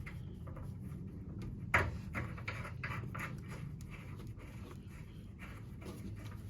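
Handling noise as a new thermostatic radiator valve body is fitted onto the radiator pipework: a string of light clicks and rubs, with one sharper knock a little under two seconds in.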